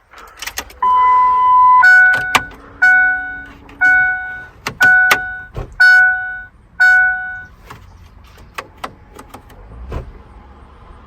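Ford F-150 dashboard warning chime: one steady tone of about a second, then six dings about once a second, with clicks of the key and switches between them. No blower fan is heard, because the blower motor is not running.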